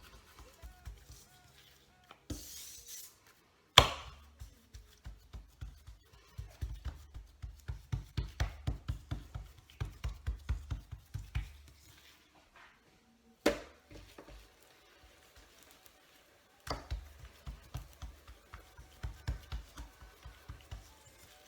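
Quick soft thuds on a kitchen work surface, about five a second, in two runs of several seconds each, with two sharper knocks between them.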